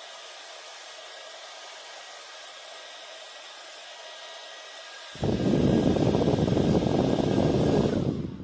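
Small battery handheld fan running with a steady whirring hiss and a faint motor whine. About five seconds in, its airstream hits the microphone as loud wind buffeting for about three seconds, then falls away near the end.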